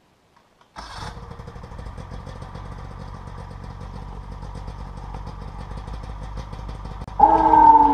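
Snowmobile engine starts suddenly about a second in and idles steadily. Near the end a much louder whine cuts in and drops in pitch: the Champion 2000 lb ATV winch motor starting to pull under heavy load.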